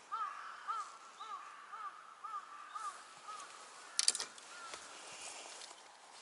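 A bird calling in a run of seven short arched calls, about two a second, then one more after a pause. A brief sharp clatter about four seconds in.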